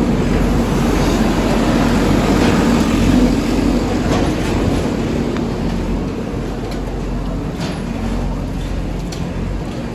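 Diesel engine of a wheeled backhoe loader running steadily, a little fainter in the second half.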